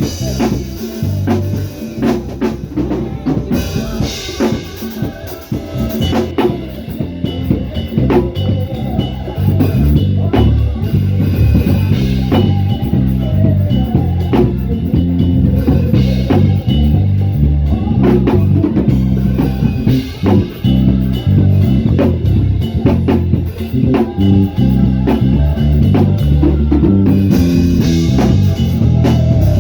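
Praise band music: a drum kit keeping a steady beat under moving electric bass guitar lines, with guitar.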